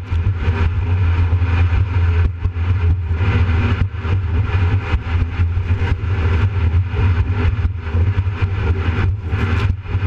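Jet boat running at speed through big waves: a steady engine drone under heavy rushing noise from wind and spray, with frequent short slaps as the hull hits the chop.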